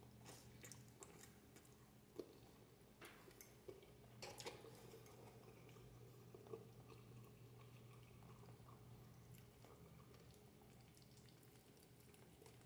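Faint chewing and mouth sounds of a person eating spaghetti with sausage, with a few soft clicks scattered through, over a low steady hum.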